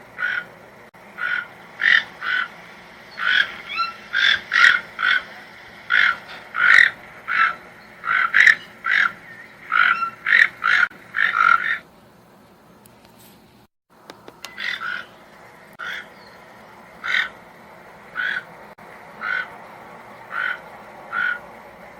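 Toucan calling: a run of short repeated calls, about two a second, that breaks off about twelve seconds in. After a short pause the calls resume more sparsely, about one a second.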